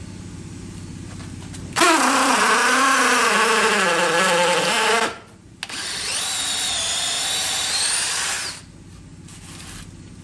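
DeWalt 20V Atomic DCD709 brushless hammer drill, in hammer drill mode, boring an auger bit into stacked framing lumber. It makes a loud run of about three seconds with the motor pitch wavering under load, stops briefly, then runs for about three seconds more with the pitch climbing near the end.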